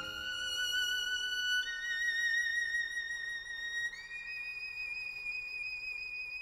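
Music: a violin playing a slow melody of long held notes with vibrato, stepping upward three times.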